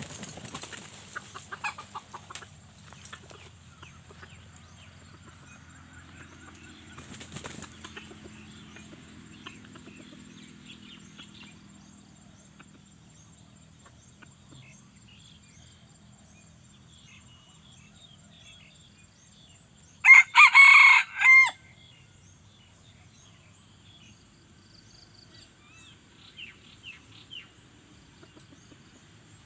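A red junglefowl rooster crowing once, loud, a clipped call of about a second and a half in three quick parts, about two-thirds of the way through. Before it there are only faint rustles and a brief rustle about seven seconds in.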